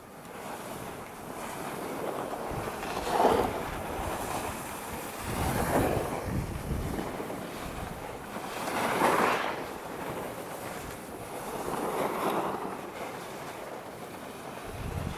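Skis carving turns on packed, groomed snow: four scraping swishes about three seconds apart, over steady wind noise on the microphone.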